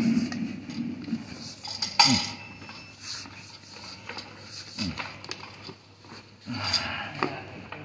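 Drain-jetting hose being pushed by hand down a floor drain, knocking and scraping against the metal drain rim, with a few short falling squeaks of hose rubbing.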